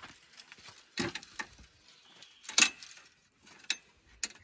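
Scattered metallic clinks and rattles from hand tools and wire being handled while a radiator is fitted. The loudest is a sharp clink with a brief ring about two and a half seconds in.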